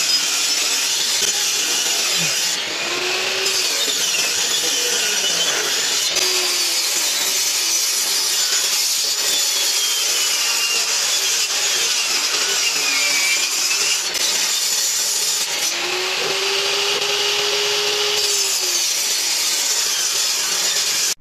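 Benchtop table saw running and cutting pine boards, a steady, loud whine and rush of the blade through the wood, its pitch sagging and recovering a few times as the cuts load it.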